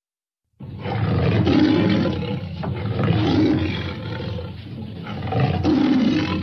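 Tiger roaring: about three long, rough roars that swell and fade one after another, starting about half a second in.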